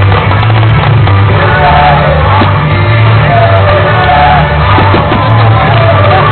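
Loud rock music with a singing voice over a heavy bass.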